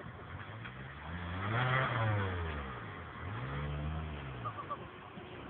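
Suzuki SJ 4x4 engine revving under load off-road. The revs climb and drop back twice, then start rising again near the end.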